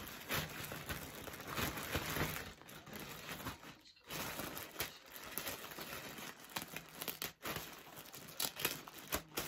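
Plastic wrapping crinkling and rustling as it is handled, while a handbag is slipped back into its plastic bag, with short pauses about four seconds in and again near seven and a half seconds.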